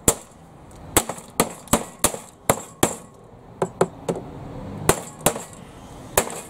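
Claw hammer striking and breaking through an air fryer's plastic top casing: about a dozen sharp blows, two or three a second with uneven pauses, each with a cracking edge.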